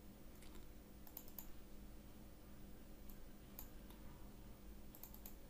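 Faint clicks of a computer mouse, a few single clicks and a couple of quick double-clicks, over a low steady hum.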